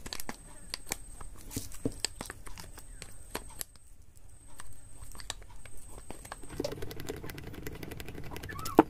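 Scattered light clicks and metallic ticks of a spanner and hands working the end-cap bolts of a motorcycle starter motor, with a sharper click just before the end.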